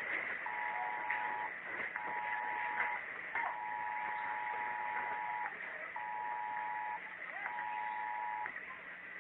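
Electronic alarm beeping, a steady two-note tone switching on and off: five beeps, most about a second long with half-second gaps, the middle one about two seconds, over a steady hiss with a few faint clicks.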